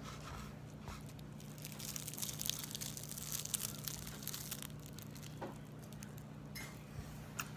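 Crisp fried batter on a piece of gar fillet crackling as it is torn apart by hand, a run of small crackles for a couple of seconds that then thins out.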